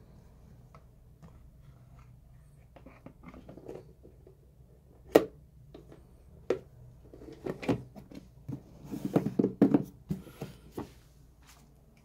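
Clear plastic food-storage container being closed and handled: its lid is set back on with a sharp plastic clack about five seconds in, followed by another knock and then a run of knocks and rattles as the box is handled.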